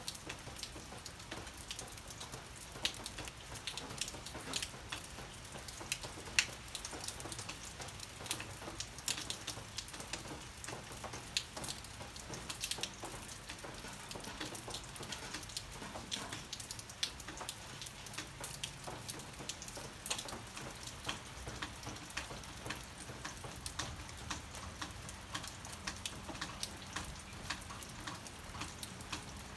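Rain falling, with many separate drops ticking sharply and irregularly on surfaces close by over a steady wash of rain noise.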